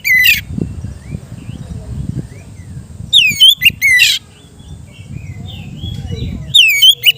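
Oriental magpie-robin (kacer) singing in loud bursts: a short phrase at the start, a longer one about three seconds in, and another near the end, each made of quick sweeping and rapidly repeated high notes. A low rumbling murmur fills the gaps between phrases.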